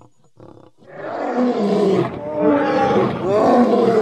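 Lion roaring: a few short, quieter grunts, then from about a second in a loud, drawn-out roar that swells twice.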